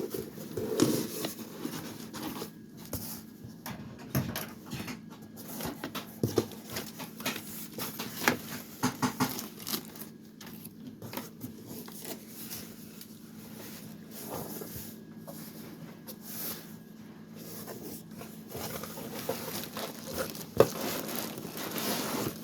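Product packaging being handled while a box is opened: scattered rustles, taps and crinkles of cardboard and plastic, over a faint steady hum.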